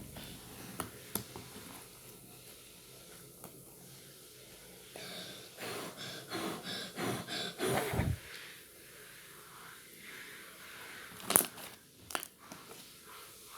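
Close handling sounds: scattered taps and clicks, with a run of soft rustling, squishing sounds about halfway through and two sharper knocks near the end.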